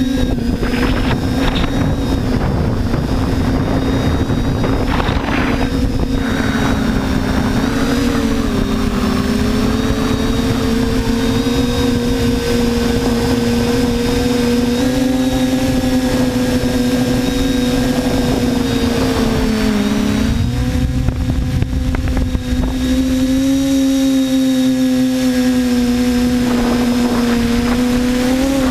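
TBS Discovery quadcopter's electric motors and propellers, recorded onboard, running with a steady buzzing drone. The pitch dips briefly about eight seconds in and again near twenty seconds as the throttle changes.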